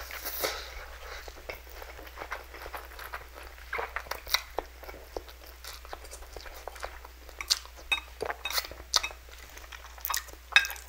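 Close-miked eating of spicy instant noodles: a slurp of noodles at the start, then wet chewing with many sharp mouth clicks and smacks.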